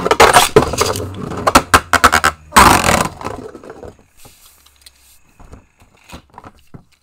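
Beyblade Burst spinning tops clattering and scraping around a plastic stadium bowl, with a loud knock about three seconds in. The sound then drops away to a few light clicks as the tops are picked out of the stadium by hand.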